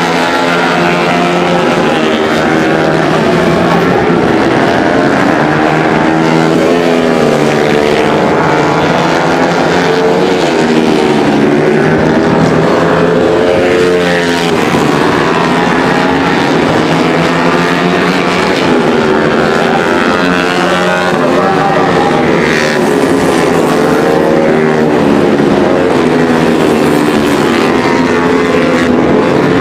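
Honda CRF150L supermoto racing motorcycles, single-cylinder four-stroke engines bored out to 180cc, running hard at race pace. Several engines overlap, their pitch rising and falling repeatedly as the riders rev out, shift and roll off for corners.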